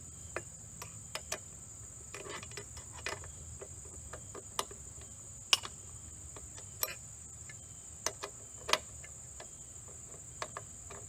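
A steady high-pitched insect drone, with about a dozen scattered light metallic clicks and taps from the hardware on the drop-hammer frame being handled as the roller screws are worked loose.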